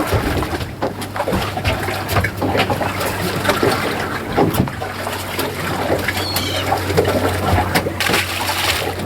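Water sloshing and splashing around a small fishing boat, with a steady low hum underneath and scattered small knocks.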